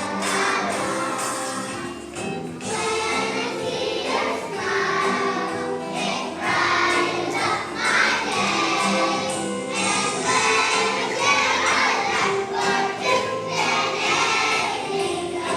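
A choir of young children singing a song together over a musical accompaniment.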